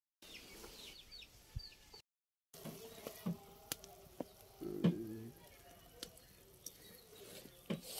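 Faint chickens clucking and small birds chirping in the background, with a few light clicks. The sound cuts out completely twice, briefly.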